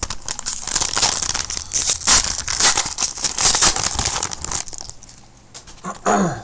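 A trading-card pack wrapper being torn open and crinkled, a dense crackling rustle that settles down after about four seconds.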